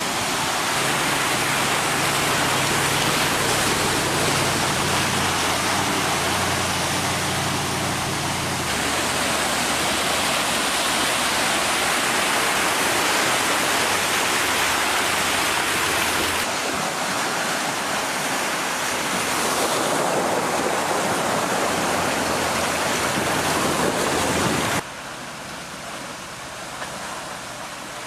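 Range Rover Sport wading through deep, muddy water: a steady rush and splash of water pushed aside by the vehicle, with the engine's low hum beneath it for the first several seconds. The sound changes abruptly a few times, and drops noticeably quieter near the end.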